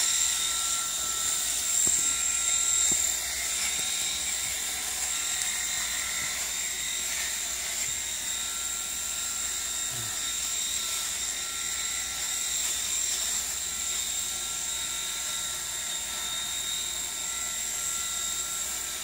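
Handheld electric shaver running steadily against a man's cheek and jaw, cutting off beard hair, with a constant high-pitched motor whine.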